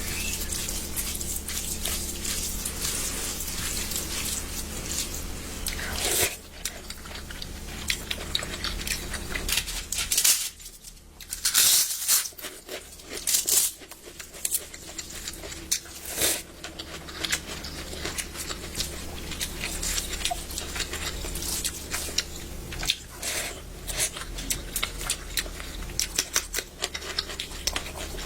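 Close-up eating sounds: food being torn and chewed, with irregular wet clicks and smacks, loudest about ten to fourteen seconds in.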